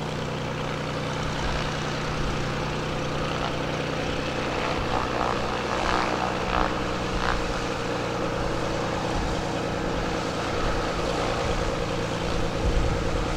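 Beechcraft A36 Bonanza's six-cylinder piston engine and propeller running steadily at low taxi power.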